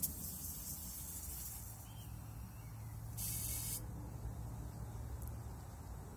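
Aerosol cleaner sprayed through a red extension straw into a lawn mower engine's air intake: a hiss of nearly two seconds, then a second, shorter burst about three seconds in.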